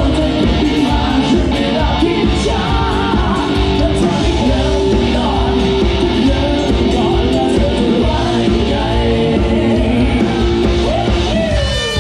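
Live rock band playing: drum kit, electric guitars and bass under sung vocals, loud and steady throughout. A pitch glides downward just before the end.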